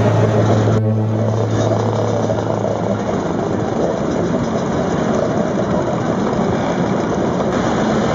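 Many vintage Vespa scooters' small two-stroke engines running together in a crowd of scooters.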